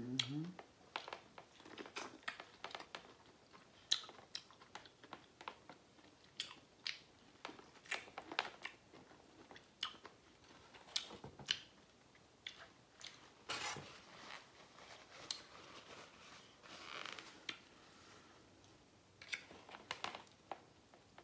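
Biting and chewing corn on the cob: irregular crunches and sharp clicks of kernels being bitten off the cob.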